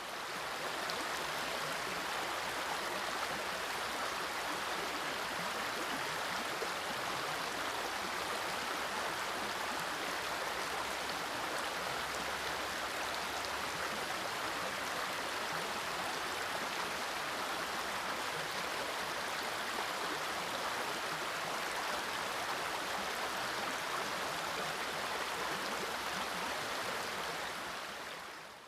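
Steady rushing of a river's flowing current, fading in at the start and out near the end.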